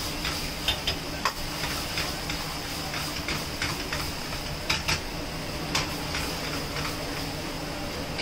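Metal spatula scraping and clinking against the pan while thick paneer gravy is stirred over a high flame, with irregular sharp clinks over a steady sizzle and hiss.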